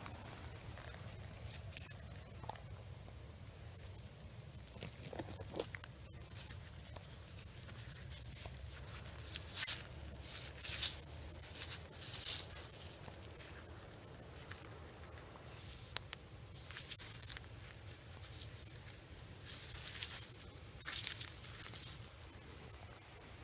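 Gravelly soil being scraped and pulled away by a gloved hand while digging out a buried glass bottle: irregular bouts of gritty scratching, busiest about halfway through and again near the end, with a few sharp clicks.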